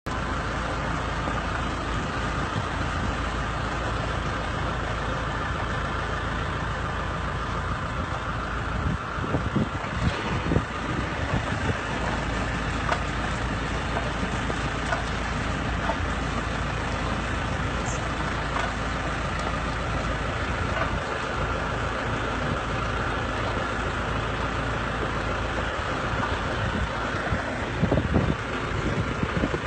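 Engine of a garlic planting machine running steadily, with a few knocks and rattles about nine to eleven seconds in and again near the end.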